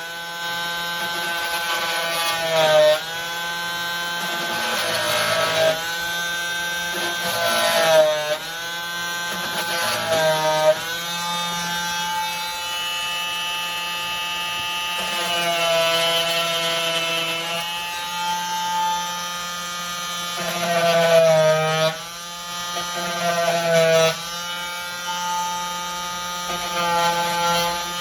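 KIMO 20V cordless oscillating multi-tool with a saw blade plunge-cutting into a wooden door jamb. Its motor whine runs continuously and dips in pitch several times as the blade bites into the wood under load, then recovers.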